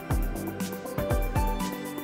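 Background music with a steady beat: a deep bass pulse about once a second under percussion and a melody.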